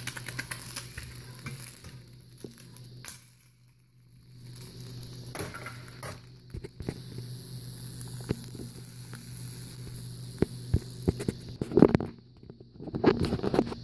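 An egg sizzling and crackling in a No. 5 cast-iron skillet on the stove, with scattered small clicks. Louder knocks and clatter come near the end.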